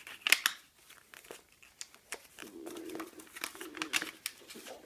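A sheet of paper crinkling and crackling as it is folded by hand into accordion pleats, with a run of short sharp crackles as the creases are pressed in.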